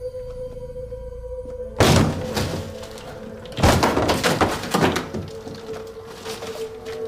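A wall being broken open: a sudden heavy crash about two seconds in, then a longer run of crashing and crumbling debris about a second and a half later. A steady held music tone runs underneath.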